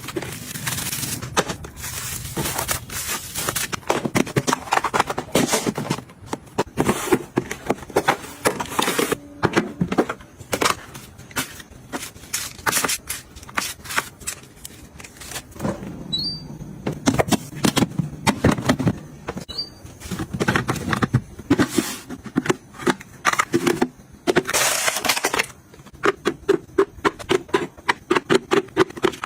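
Household items being handled: a dense run of small clicks, taps and rustles as things are picked up, opened and set down.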